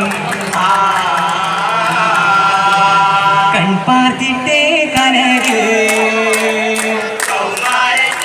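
Group of young men singing a Vattappattu (Mappila song) together, with long wavering held notes. A few sharp clicks come in the second half.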